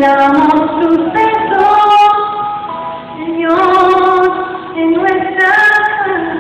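A Christian worship song sung by a woman over instrumental backing, with held notes in long phrases.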